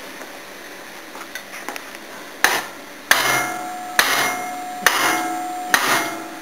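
A hammer striking a steel breaker bar on an engine's crankshaft pulley bolt: five sharp metallic blows about a second apart, starting a couple of seconds in, each ringing briefly. The blows are shock-loading a very tight bolt that air impact guns could not undo.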